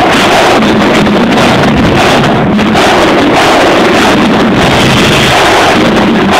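Marching band drumline with crash cymbals playing as it marches, recorded through a badly overloaded microphone, so the music comes through as a loud, distorted roar with no clear separate beats.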